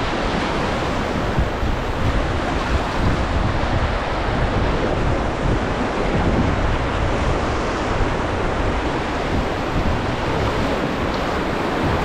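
Whitewater of a river rapid rushing steadily, with wind buffeting the microphone.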